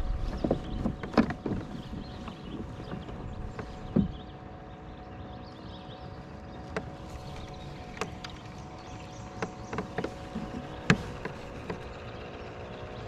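Scattered knocks and clicks of hands and fishing gear against a plastic fishing kayak, the loudest about a second in, about four seconds in and near the end, over a steady hum.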